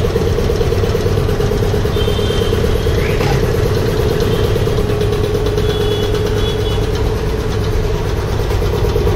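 Double-piston, belt-driven air compressor with a 2 HP single-phase electric motor running steadily: a constant mechanical hum.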